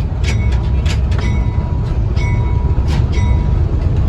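Railway car rolling along the track: a steady low rumble with irregular sharp metallic clicks and brief ringing squeaks from the wheels and rails.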